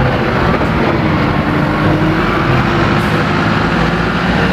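A motor vehicle engine running steadily and loudly.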